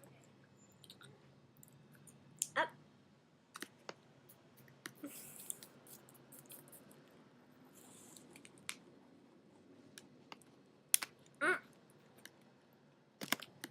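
Pet rabbit chewing a piece of apple: scattered soft crunches and clicks, with a few sharper ones about a quarter of the way in and past the middle.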